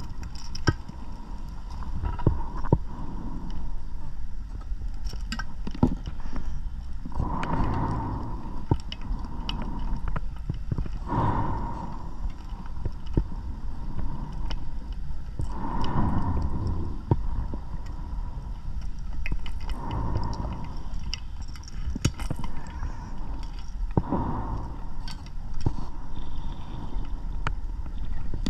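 Underwater breathing of a scuba diver through a regulator: a gurgling rush of exhaled bubbles about every four seconds, with small clicks between the breaths.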